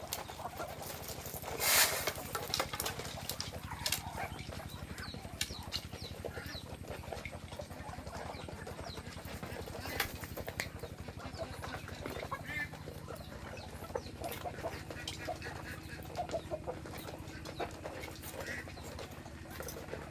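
Chickens clucking softly, with short scattered calls and small clicks and a louder burst of noise about two seconds in, over a steady low hum.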